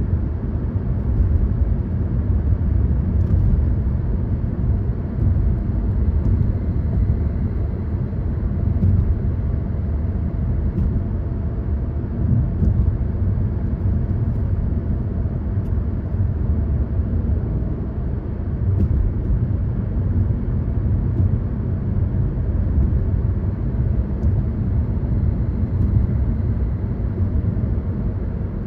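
A car driving at a steady pace: an even low rumble of engine and road noise, with a few faint ticks.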